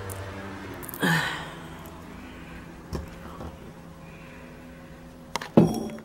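A white PVC door thunks as it is opened, followed by a lighter click about three seconds in and a sharp, loud clunk near the end.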